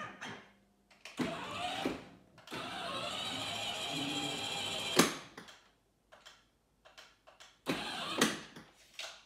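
Electric ride-on toy truck's drive motors and gearboxes whirring steadily for a few seconds, run by its remote control, ending in a sharp click; a second short whir with a click comes near the end.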